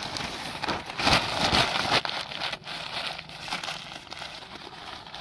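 Newspaper being rustled and crumpled by hand into a ball, a dense crackling that is loudest from about one to two seconds in.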